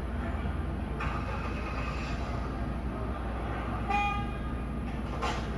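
Steady noise of pouring rain and passing traffic, with a brief horn toot about four seconds in.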